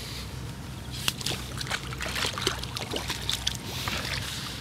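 Water splashing and dripping as a carp is tipped from a landing net into a keepnet at the water's edge, with a run of small splashes and drips from about a second in.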